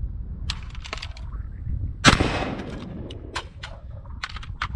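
A single rifle shot about two seconds in, ringing out with a trailing echo, surrounded by several lighter sharp clicks and knocks.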